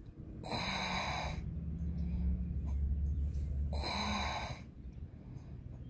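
A person's breathing close to the microphone: two long breaths about three seconds apart, with a low steady hum between them. No shot is fired.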